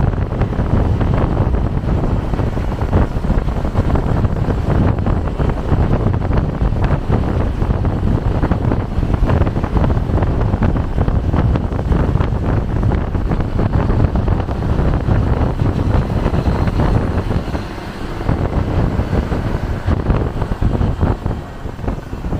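Steady noise of a moving vehicle on the road, with wind buffeting the microphone; the level dips briefly about eighteen seconds in.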